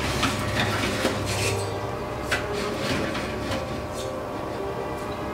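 Metal clinks and scrapes of a steel truck spindle being set on a wire oven rack, and of the rack being shifted inside an electric oven. Scattered light knocks run over a steady low hum.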